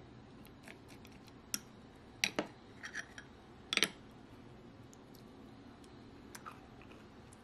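Spoon clinking against a clear glass mug while scooping yogurt and granola. There are a handful of short, sharp clinks between about one and a half and four seconds in, the loudest near two and near four seconds.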